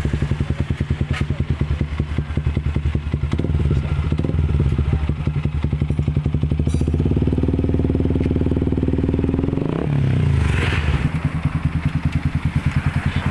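Yamaha Vixion's single-cylinder 150 cc four-stroke engine breathing through an F2Racing CL.LONG stainless slip-on silencer, with a deep, round bass note. It idles with an even pulse, is held at higher revs from about six seconds in, and drops back to idle about ten seconds in.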